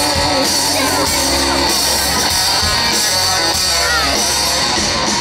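Live rock band playing: drums and electric guitar with a singing voice.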